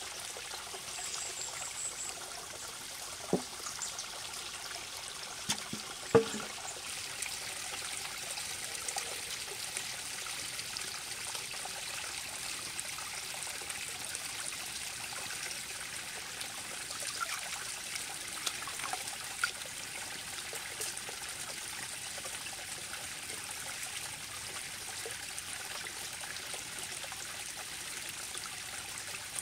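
Stream water running steadily with a light trickle. A couple of sharp knocks come about three and six seconds in, the second the loudest.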